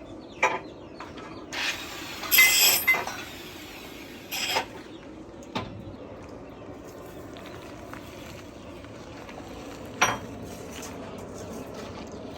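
Metal being handled: a few separate clinks and knocks of steel on steel, the loudest a cluster that rings briefly.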